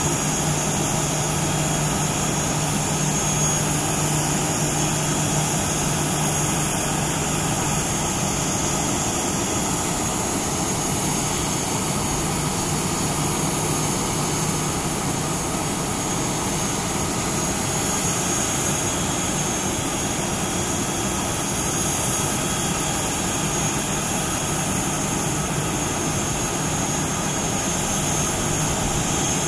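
Jet airliner's engines running steadily at idle after pushback, a constant rushing noise with a high-pitched turbine whine.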